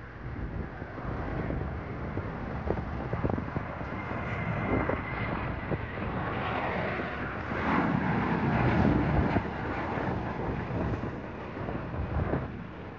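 Boeing 737 jet airliner passing close overhead on final approach. The engines make a steady rushing noise with a low rumble that builds to its loudest about eight to nine seconds in, then eases.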